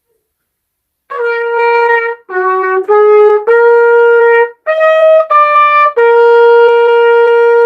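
A solo trumpet playing a slow seven-note melody, the last note held long.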